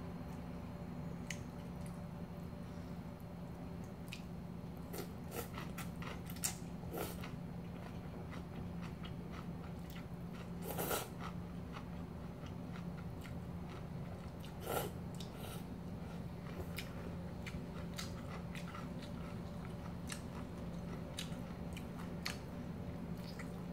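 A person eating cold kimchi noodles: chewing and slurping noodles, with scattered short clicks and a few louder slurps, the loudest a little before halfway through, over a steady low hum.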